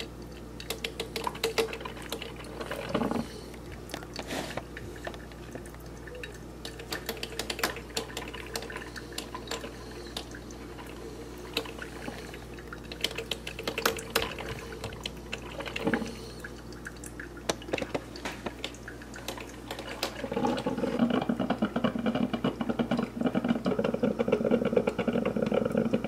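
Mr. Coffee Jr. drip coffee maker brewing: water gurgling and sputtering through the machine with scattered crackling pops. It turns louder and denser about 20 seconds in as the brew cycle nears its end.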